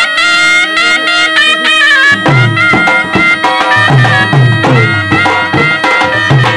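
Indian folk band: a masak bagpipe sounding its steady drone under an ornamented reedy melody from the shehnai and bagpipe chanter. About two seconds in a dhol drum joins, beating a steady rhythm of low strokes.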